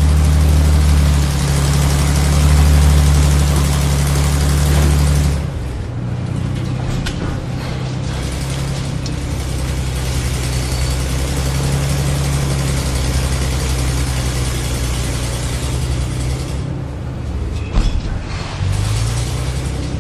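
Remote-control toy tractor's small electric motor and plastic gears running steadily. Louder for about the first five seconds, then a little quieter, with a brief sharp click near the end.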